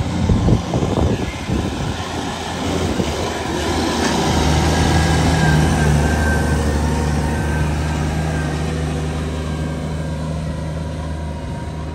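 YTO 1604 tractor's diesel engine running steadily, its note growing stronger about four seconds in. A few brief thumps in the first second.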